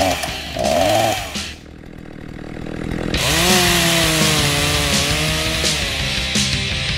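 Two-stroke chainsaw revving briefly, then a louder cutting run into wood starting about three seconds in, its engine pitch easing down slowly under load.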